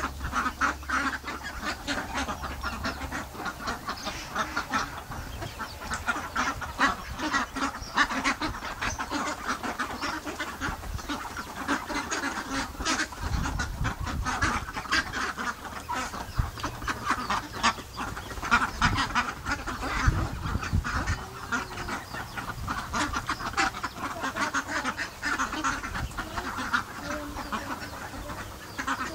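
A large flock of domestic ducks quacking continuously, many calls overlapping. A few low bumps come about halfway through.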